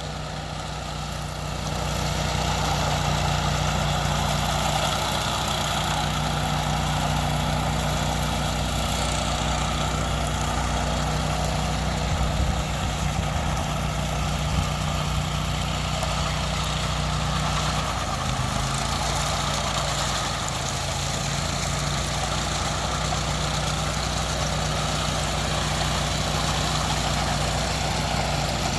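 Ride-on power trowel's engine running steadily as it finishes fresh concrete, with a brief change in the engine note about two-thirds of the way through.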